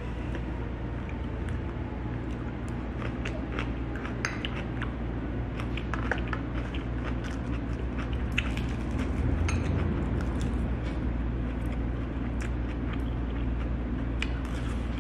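Metal chopsticks tapping and clicking against ceramic bowls during a meal, in many small irregular clicks, over a steady low background hum.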